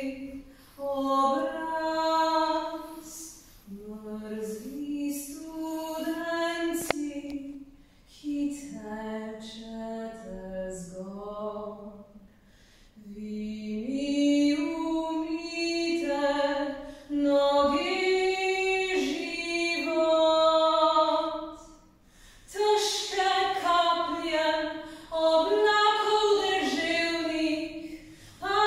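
A woman singing solo and unaccompanied, a Slovenian art song sung in long held notes, with short breaks for breath between phrases every few seconds.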